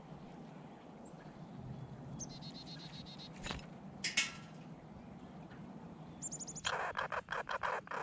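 Small songbird calls, a quick high trill about two seconds in and a short high series near the end. Then, from about seven seconds, a red squirrel's rapid, harsh chattering starts and is the loudest sound.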